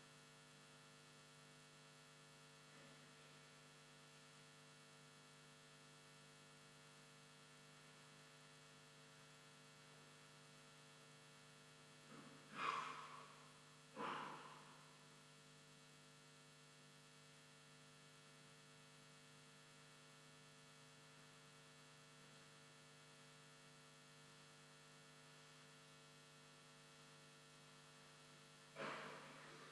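Faint steady electrical mains hum with several held tones. About halfway through come two short sounds a second and a half apart, and another near the end.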